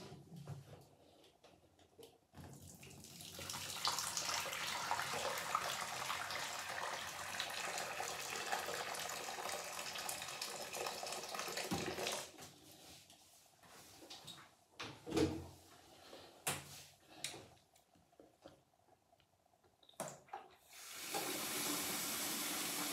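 Bathroom tap running into a sink, then turned off; a few short knocks and splashes follow before the tap runs again near the end.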